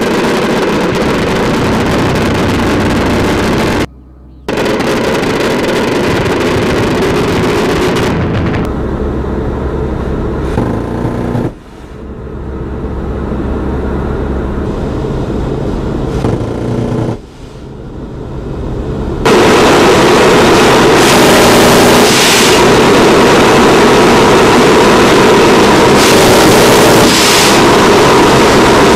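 Loud, steady noise of an AC-130 gunship's four turboprop engines and propellers, in several spliced stretches that cut off and change abruptly; the last third is the loudest.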